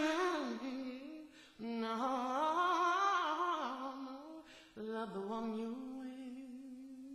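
A solo male voice sings the song's wordless closing ad-lib, unaccompanied, in three phrases: a falling phrase, a wavering one from about a second and a half in, then a long steady hummed note from about five seconds in, fading slowly.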